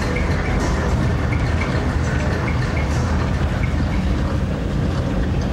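Inside a moving Doppelmayr cable-hauled people-mover tram: a steady low rumble of the car running along its elevated guideway, with light ticks about twice a second.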